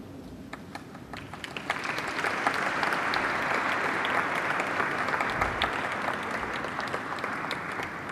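Audience applauding: a few scattered claps that swell into steady applause about two seconds in, then thin out near the end.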